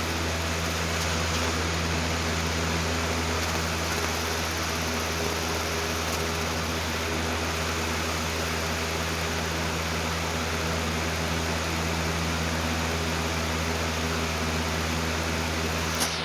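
Lasko Cool Colors 20-inch box fan running steadily, picked up through a phone leaned against its housing: a strong low hum with a few steady tones over an even rush of air. The hum is the fan's vibration, which the owner puts down to a balance problem in the plastic blades.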